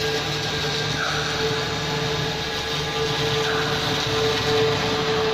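A 4-axis CNC router's spindle runs with a steady whine while its long bit carves a polystyrene foam block. Two brief pitch sweeps come about a second in and again around three and a half seconds in.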